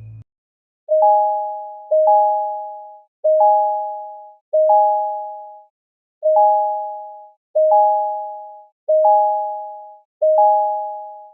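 Electronic chime tones: eight two-note dings, each a low pure note with a higher one joining a split second later and fading out over about a second, in two groups of four.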